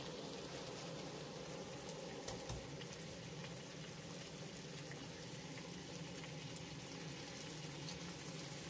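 Yellow croaker frying in oil in a pan, a steady sizzle, with a soft knock about two and a half seconds in.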